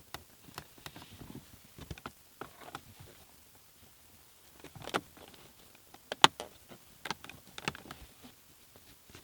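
Scattered plastic clicks, snaps and rustling as a BMW E36 shift boot frame is pressed back into its retaining clips and the shift knob is fitted, with the sharpest snap about six seconds in.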